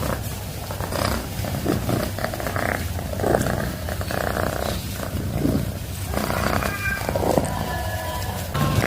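Domestic cat purring steadily, in a rhythm whose tone shifts every second or so as the cat breathes in and out.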